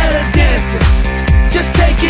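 Pop dance music with a steady kick-drum beat, a little over two beats a second, under gliding synth or vocal-chop lines.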